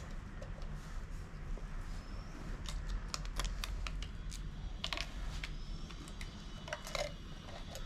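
Scattered light plastic clicks and taps from handling the BMC CPAP machine's humidifier water chamber, closed after filling and being fitted back into the machine.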